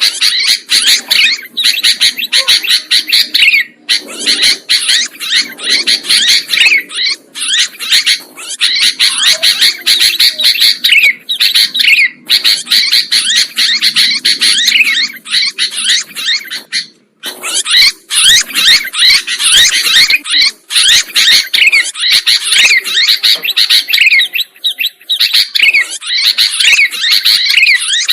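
Sooty-headed bulbuls (kutilang) chirping and singing in a dense, noisy, continuous stream of rapid notes, with a few brief breaks.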